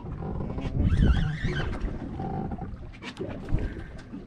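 Wind buffeting the microphone, with sea water washing against a small boat's hull.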